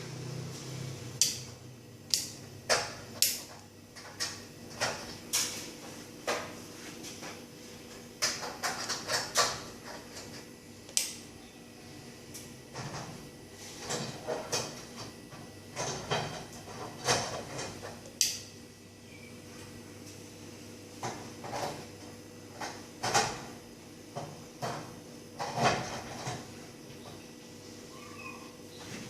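Irregular clicks and light knocks of small hard parts and tools being handled while working on a light fixture, some in quick clusters, over a faint steady hum.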